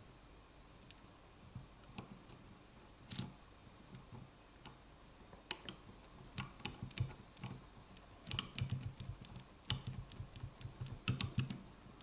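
Small, irregular clicks and taps of a hook pick working the pins inside an ASEC cylinder lock held under tension, sparse at first and coming thicker in the second half.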